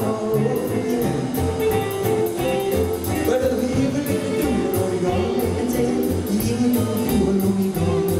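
Rock 'n' roll band playing live: a male singer singing over electric guitar and drums keeping a steady beat.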